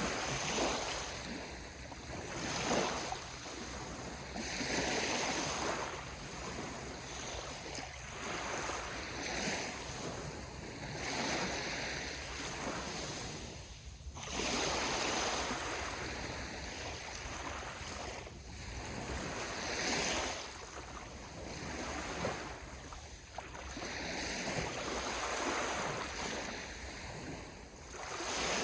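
Sea waves washing onto the shore, the surf rising and falling in repeated swells every few seconds.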